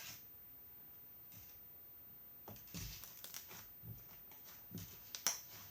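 Fluffy slime being squeezed and worked by hand, giving a run of irregular soft clicks and crackles that starts about halfway through.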